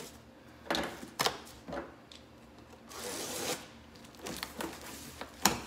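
Packing tape being picked at and peeled off a cardboard box: scattered scratches and taps on the cardboard, with a longer tearing rasp about three seconds in and a sharp click near the end.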